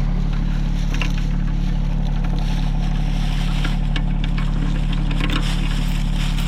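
Diesel engine of a Rural King RK24 compact tractor running steadily under the backhoe, with a few scattered light clicks and knocks over it.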